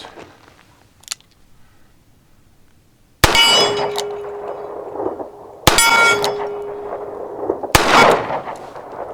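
Three shots from a Smith & Wesson Model 19 snub-nose revolver, a bit over two seconds apart, aimed at a steel plate at 25 yards. The first two each set the plate ringing for over a second; the last only nicks the plate and leaves no clear ring.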